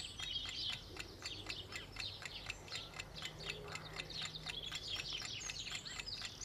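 Small songbirds chirping and singing in quick, high twittering phrases, with a fast, even clicking underneath.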